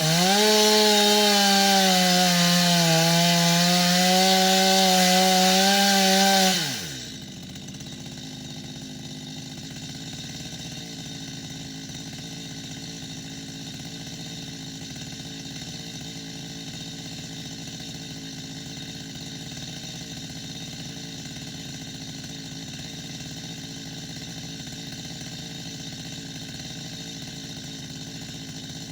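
Two-stroke chainsaw running at full throttle, its pitch dipping and wavering slightly as it works, then released about six and a half seconds in and dropping back to a steady idle.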